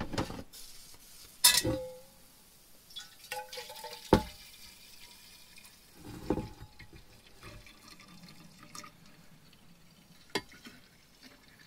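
Coffee poured from a glass coffee-maker carafe into a steel vacuum flask: a faint trickle of liquid, broken by a few clinks and knocks of the carafe and flask, some of them ringing briefly.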